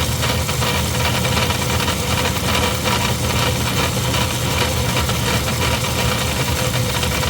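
Craftsman 109 metal lathe running under power, a steady mechanical hum with a constant whine.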